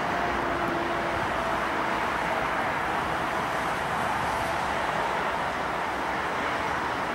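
Steady, even roar of distant engines, with faint steady hums in the first second or so.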